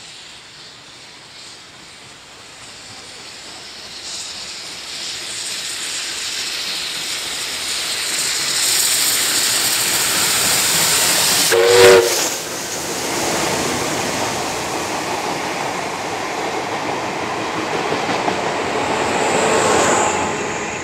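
NSW 59 class 2-8-2 steam locomotive 5917 approaching and passing with a rake of carriages, the rolling noise swelling and running on as the carriages go by with clickety-clack. About halfway through, a short whistle toot is the loudest moment, and a thin high squeal comes near the end.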